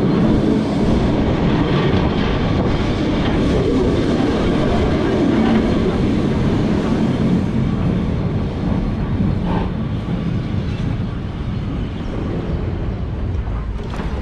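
Vintage Lisbon tram running along its rails, heard from inside the wooden car: a steady rumble of the car on the track, growing a little quieter in the second half.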